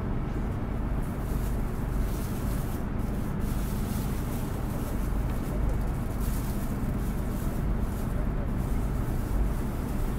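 Nissan Diesel Space Runner RA city bus under way, heard from inside the cabin: a steady low hum of the diesel engine mixed with road noise.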